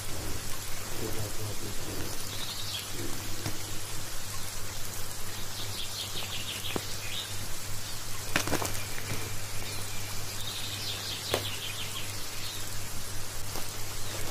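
Plastic packaging rustling and crinkling as a wrapped fur carpet is handled, with a couple of sharp crackles, over a steady low hum.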